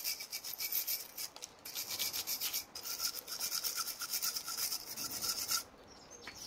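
Wire brush scrubbing the brake pad seats of a car's brake caliper carrier in rapid back-and-forth strokes, bristles rasping on metal, cleaning rust and crud from where the pads sit. The scrubbing stops about a second before the end.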